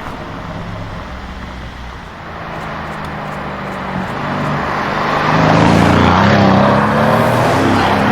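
Jaguar F-Type SVR's supercharged V8 exhaust, running at low speed and growing louder, then loudest from about five seconds in, with the engine note rising and falling under throttle.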